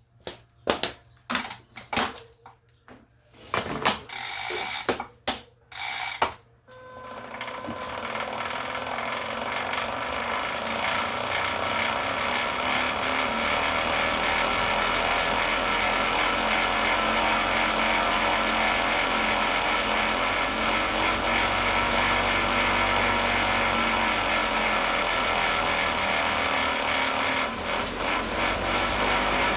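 Elite Direto direct-drive smart bike trainer spinning up and running with a loud rumble, a fault that came on suddenly even though the drive belt looks fine. A few short separate knocks come first, then the running noise builds over several seconds and holds steady.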